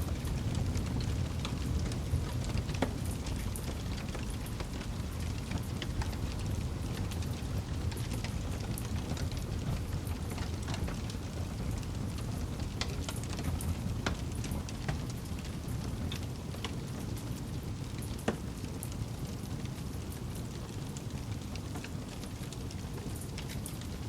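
Wood campfire burning, with irregular small crackles and pops over a steady low rumble, and one sharper pop about three quarters of the way through.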